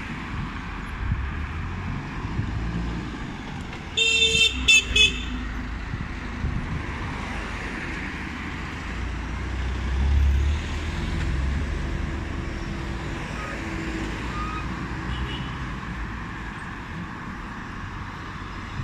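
City street traffic rumbling steadily, with a vehicle horn sounding a few short, shrill honks about four seconds in. A vehicle rumbles past close by around ten seconds in.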